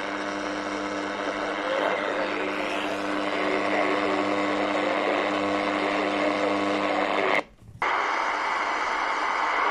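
Shortwave static and hiss from a portable radio's speaker tuned to 2275 kHz, the weak spurious reception of a signal that belongs on 13830 kHz, with a steady low hum under it. About seven and a half seconds in the sound drops out for a moment, then the hiss resumes from a second receiver, an XHDATA D-808, without the hum.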